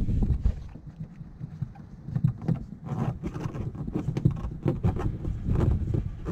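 Low, uneven rumble of noise on the phone's microphone, with scattered light clicks and taps as hands work at a plastic mud flap and its screws.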